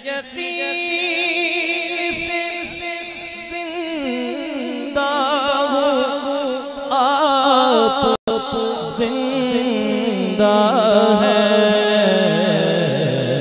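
A man's voice singing a naat, a devotional Urdu poem in praise of the Prophet, drawing out long, wavering, ornamented notes. The sound drops out for an instant about eight seconds in.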